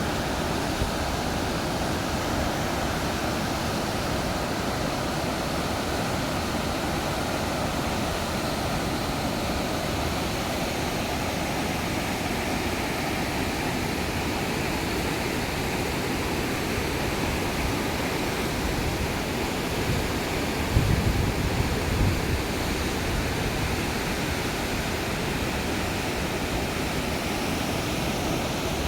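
Waterfall rushing as a steady, unbroken roar of falling water. A few brief low thumps on the microphone come about two-thirds of the way in.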